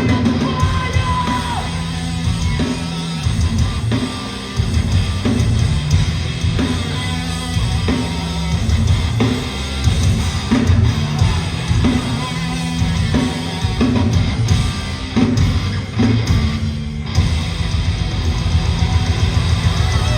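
A hardcore band playing loud live music, with distorted electric guitars and drums.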